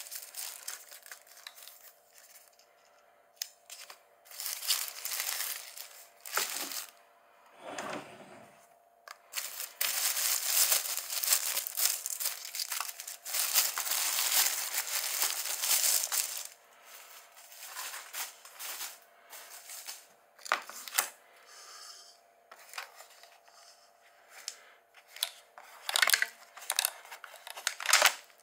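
Thin plastic carrier bag rustling and crinkling in irregular bursts as takeout containers are lifted out of it, loudest in a stretch of about six seconds in the middle. A few sharper crackles near the end as a paper food box is opened.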